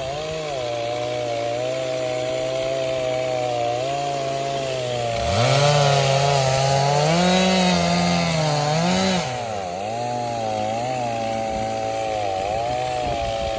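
Two chainsaws running at once, one a Stihl MS460, cutting elm logs; one saw runs steadily under load while the other revs up about five seconds in, cuts at full throttle for about four seconds, then drops back.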